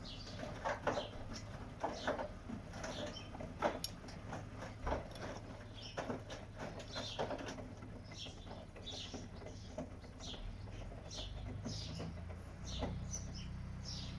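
Washing machine running: irregular knocks and clicks from the turning drum, with a low motor hum that steps up in pitch about two-thirds of the way through.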